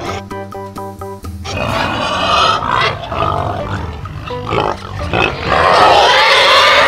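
Domestic pig calling over a light background tune: after about a second and a half of music, a series of rough, noisy pig calls begins, the loudest and longest of them near the end.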